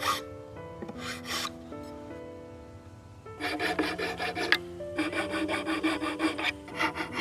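Rapid back-and-forth rasping strokes of a hand tool on hard wood or shell. There are a couple of short strokes at first, then quick runs of strokes from about halfway through.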